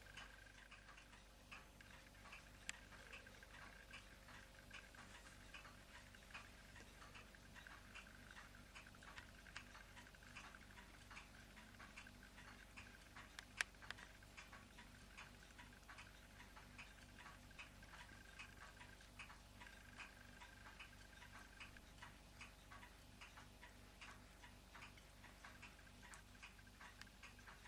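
Near silence: room tone with faint, regular ticking.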